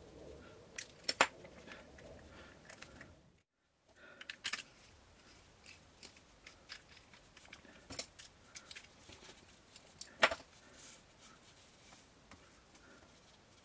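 Scattered light clicks and metallic taps of small parts and tools being handled, two of them sharper than the rest. The sound cuts out completely for a moment about three and a half seconds in.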